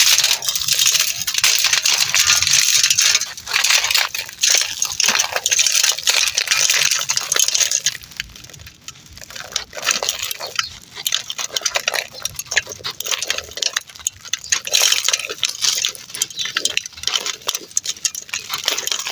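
Dry, gritty clumps being crumbled and crushed, a dense run of crunching and fine crackling grit. It eases off for a couple of seconds near the middle, then picks up again.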